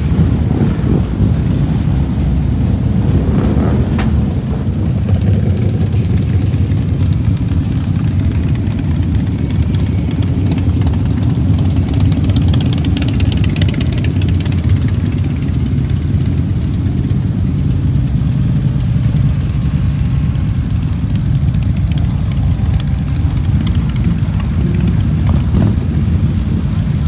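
A crowd of Harley-Davidson V-twin motorcycles running together in a slow-moving, stop-and-go column, a steady loud low engine rumble of many bikes idling and rolling at walking pace.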